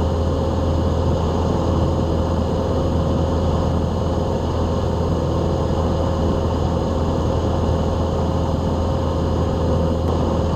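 Piper Archer's single piston engine and propeller in cruise, heard from the cockpit as a steady, even drone with a constant low hum.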